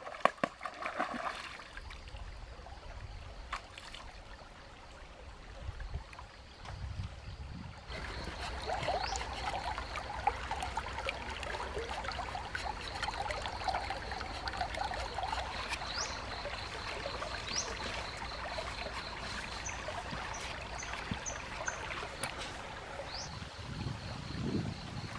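Shallow stream water trickling and flowing over rocks, growing louder about eight seconds in. A few short, high chirps come through over the water later on.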